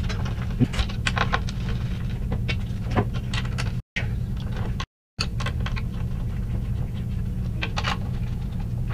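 Light metallic clicks and taps of flathead 1/4-20 screws being set into countersunk holes in a robot's top deck and spun in by hand onto aluminium standoffs, over a steady low hum. The sound cuts out briefly twice near the middle.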